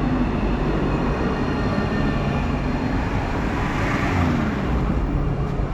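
City tram running: a steady rumble with a faint motor whine.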